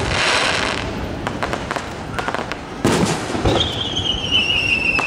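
Aerial fireworks bursting overhead, with crackling and a sharp bang about three seconds in. Soon after the bang comes a long whistle that slowly falls in pitch.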